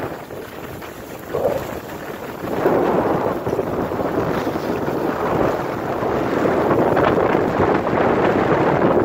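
Wind rushing over the microphone of a skier moving down a groomed piste, with skis sliding on the snow; the rush grows louder about two and a half seconds in and stays up.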